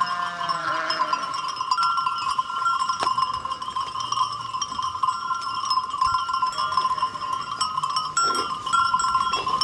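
A sheep bleating in a falling call in the first second, over the steady ringing of bells on a grazing flock, with a couple more short bleats near the end.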